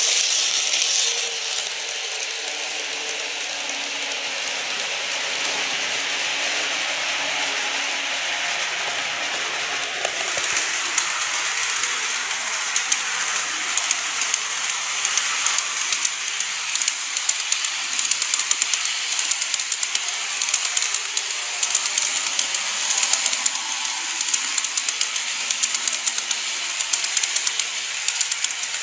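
Model railway train, a Seibu 9000 series model, running on its track: a steady whirring run with a fast, fine clicking of the wheels over the rail joints, which grows busier from about ten seconds in.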